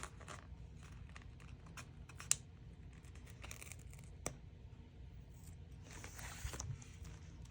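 Faint paper rustling and crinkling as a sticker is peeled from its backing sheet and handled, with a sharp tap about two seconds in, a lighter one about four seconds in, and a longer peeling rustle near the end.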